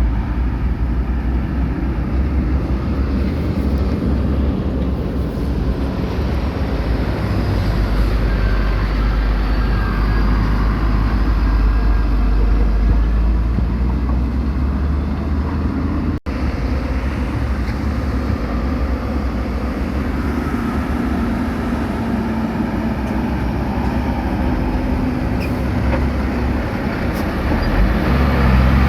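Heavy diesel construction machinery, bulldozer or wheel loader, running under load with a steady deep engine rumble, broken by a momentary gap just past halfway.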